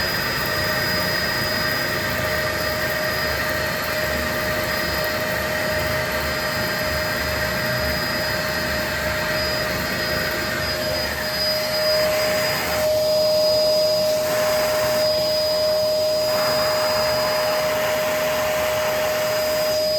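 Shop vacuum running steadily with a constant whine over a hiss; its sound shifts a few times past the middle, the hiss dipping and the whine growing stronger.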